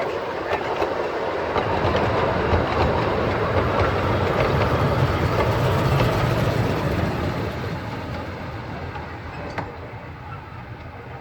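Narrow-gauge train hauled by the Hunslet Wren-type steam locomotive Jenny running past, its wheels rumbling and clattering on the rails. It grows louder to a peak near the middle, then fades as it moves away.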